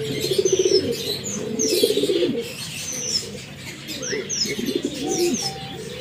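Fantail pigeons cooing in several rolling bouts, each a second or so long. Short, high chirps of small birds sound over the top.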